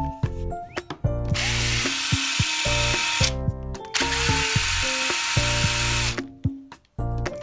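Makita TD022D pen-type cordless impact driver running with an empty chuck, triggered twice for about two seconds each, over background music. It spins up freely, a sign that the repaired driver works.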